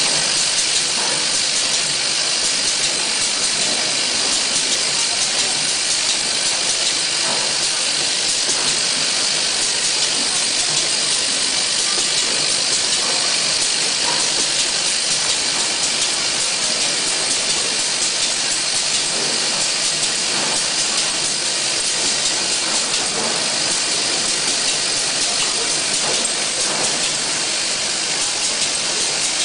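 Steady hiss of compressed air from a pneumatic zipper-slider assembly machine, with a few faint metallic clicks as sliders are fed and pressed.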